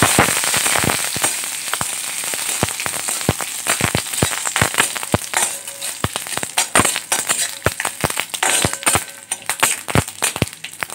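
Panch phoron, curry leaves and chillies frying in hot mustard oil for a tempering. A sizzle fades over the first two seconds, then scattered sharp pops and crackles follow as the spices splutter.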